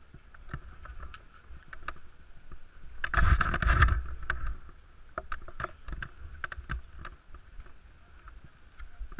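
Skis sliding and scraping over packed snow, with one loud swoosh about three seconds in and scattered sharp clicks and knocks.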